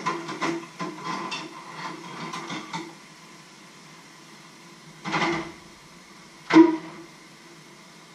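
Dishes and utensils clattering in a stainless steel sink during washing up, over a steady hiss of running tap water. A short rush about five seconds in, then one sharp metallic clank near the end, the loudest sound.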